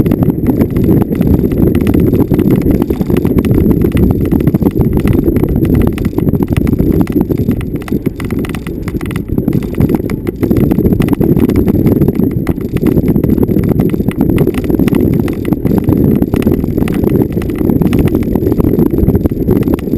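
Vehicle jolting over bumpy off-road ground: a dense low rumble packed with rapid, irregular knocks and rattles, easing slightly about halfway through.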